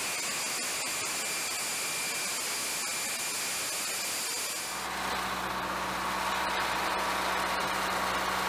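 Flight-line machinery noise around a parked jet bomber: a steady hiss with a high turbine-like whine, changing sharply about five seconds in to a lower, steady engine hum.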